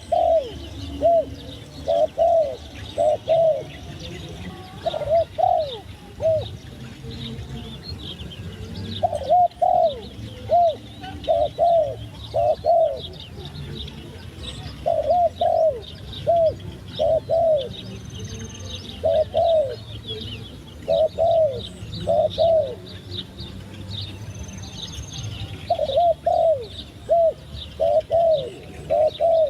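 A dove cooing in bursts of short, quick coos, one burst every few seconds, with small birds chirping faintly and high in the background.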